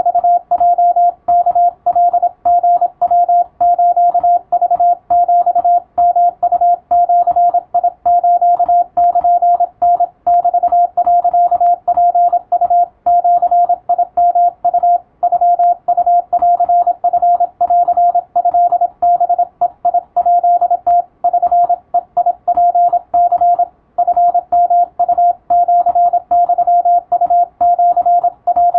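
Morse code practice tone, a single steady pitch keyed on and off in quick dots and dashes, sending Japanese Wabun code in radiotelegram format for receiving practice.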